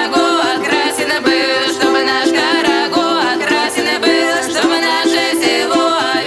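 Background instrumental music: a busy, rhythmic melody over a steady held drone.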